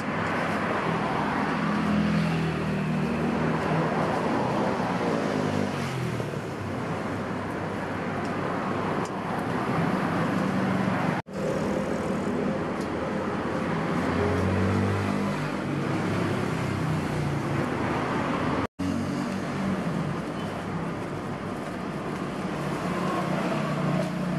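Steady background rumble and hiss like road traffic, with a low hum that swells and fades in patches. It cuts out abruptly twice, briefly each time.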